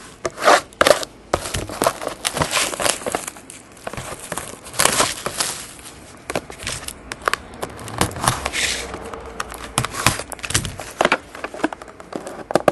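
Plastic shrink-wrap on a trading-card box being snipped with scissors and torn away, crinkling in irregular rustles. This is mixed with scrapes and small clicks as the cardboard box is slid out and handled.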